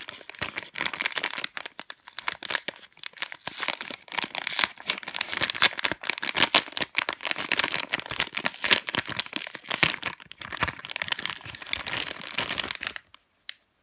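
Resealable plastic packaging bag crinkling and rustling as hands work it open and handle it, in a dense run of crackles that stops suddenly about a second before the end.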